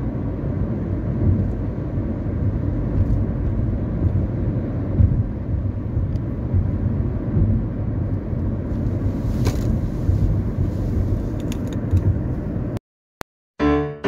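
A car driving along a road, heard from inside the cabin: a steady low rumble of tyre, road and engine noise. It cuts off suddenly near the end.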